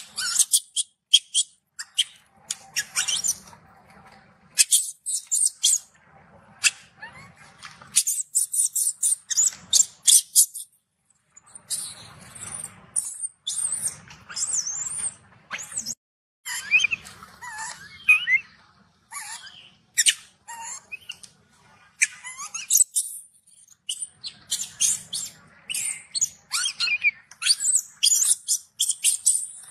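Baby macaque squealing: runs of rapid, high-pitched squeaks with a few short pauses, and some wavering cries in the middle and near the end. These are an infant's angry distress calls when its mother refuses it milk.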